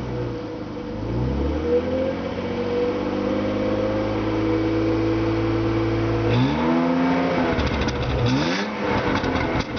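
BMW E36 320i's M52 2.0-litre straight-six, hot, with the stock exhaust, being revved: the revs rise about a second in and are held steady for about five seconds, then drop back. A short blip of the throttle follows near the end.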